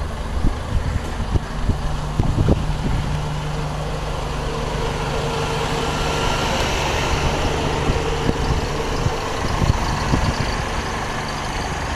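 Motorcycle engine running steadily, with wind rushing over the microphone.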